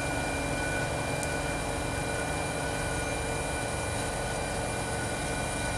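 Wood chipper running steadily, its engine drone overlaid with a constant high whine.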